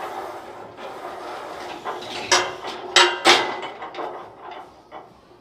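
Loaded barbell and iron weight plates on a Smith machine clanking and rattling, with a few sharp metal knocks a little past two seconds in and around three seconds in, as the bar is racked at the end of a set of squats.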